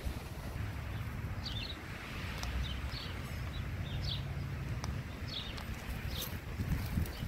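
Small songbirds chirping, short high chirps repeated every half second or so, over a steady low rumble.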